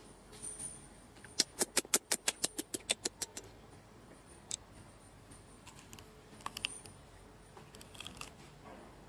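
A quick, even run of about a dozen sharp clicks, six or seven a second, lasting about two seconds, followed by a few scattered single clicks.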